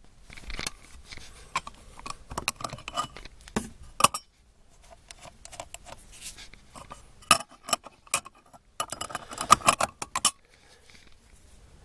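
Metal electrical junction boxes and their covers being handled: scattered clicks, clinks and small rattles, busiest in a run of louder clicks from about seven to ten seconds in.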